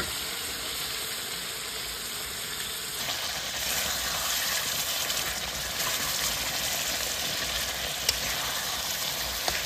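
Mutton frying in oil in a kadai, a steady sizzle, with its reserved gravy just added. The sizzle grows a little louder about three seconds in, and a couple of sharp clicks come near the end.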